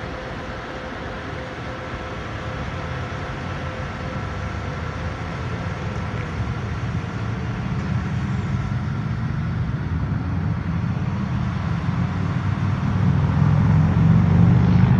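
Low, steady rumble of a vehicle engine and road traffic, growing gradually louder, with a faint steady whine over it in the first half.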